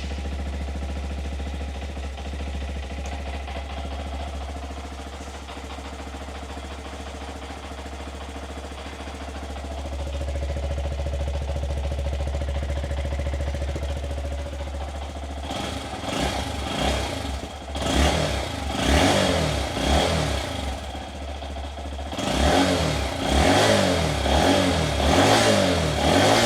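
Honda Monkey 125's air-cooled single-cylinder four-stroke engine idling steadily through its stock exhaust, then revved in a string of short throttle blips over the last ten seconds or so.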